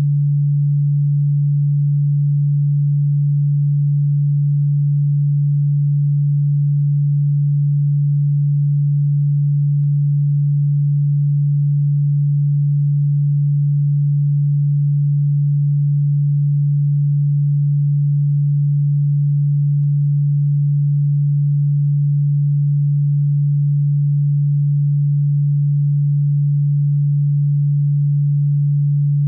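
A steady, low-pitched electronic sine tone that holds the same pitch and level throughout. It is played as a cockroach and ground-insect repellent frequency, though it is a low hum rather than an ultrasonic pitch.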